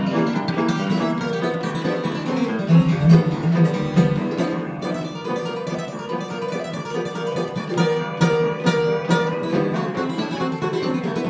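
Live acoustic string band playing an instrumental tune, with mandolin and acoustic guitar picking together over a keyboard.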